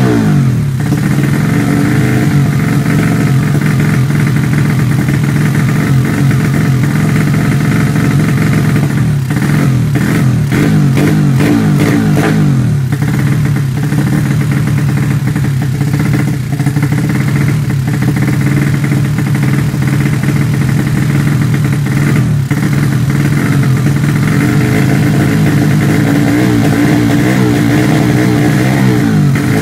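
Honda Supra four-stroke single-cylinder engine, built for drag racing with Honda Sonic 150 valves and an open race carburettor, running on the stand. Its revs fall away about a second in, hold a steady fast idle, then rise and waver again near the end as the throttle is worked.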